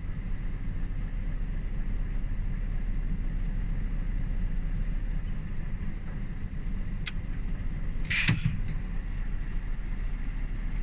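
A truck's engine running steadily under load while it tows a stuck van free, heard from inside the cab as a low, even hum. There is a click about seven seconds in and a brief hiss just after eight seconds.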